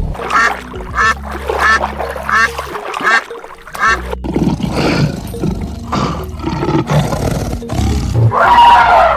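Animal calls: about six short repeated calls in the first four seconds, then a louder drawn-out call near the end, over steady background music.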